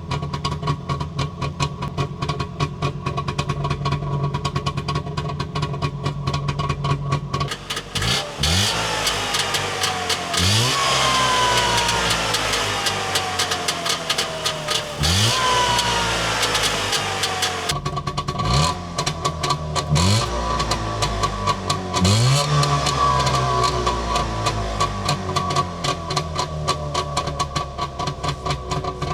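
Trabant 601's two-cylinder two-stroke engine, on a Mikuni TMX27 carburettor, idling steadily, then blipped about six times from about seven seconds in, each rev rising sharply and falling slowly back to idle before it settles to idle again near the end.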